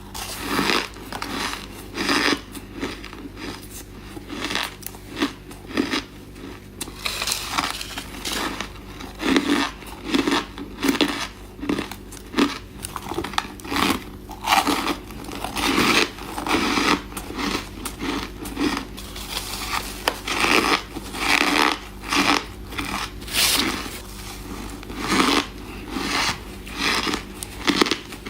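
A person biting and chewing ice: an irregular run of crisp crunches, about one or two a second.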